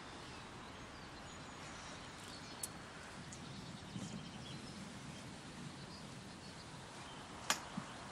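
Faint outdoor garden ambience, a low steady hiss with a few faint bird chirps and two soft sharp ticks, one about two and a half seconds in and one near the end.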